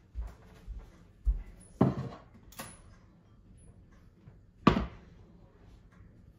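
Household knocks and bangs: a few soft thumps in the first second and a half, then two sharp bangs about three seconds apart, the second the loudest, with a small click between them.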